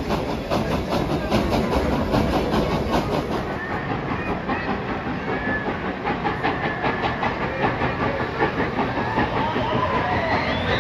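Dollywood Express steam locomotive chuffing in an even beat of about four exhaust beats a second, heard from an open passenger coach, over the rumble and clatter of the train on the rails. The chuffing fades about three and a half seconds in, leaving the train's running rumble with faint thin squeals.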